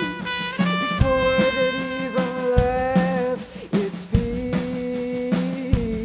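Live band music: long held trumpet notes over guitar, bass and drums, with some singing.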